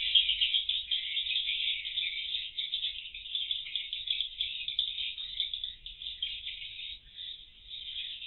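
Continuous dense twittering of edible-nest swiftlets, a rapid high chatter that thins briefly about seven seconds in.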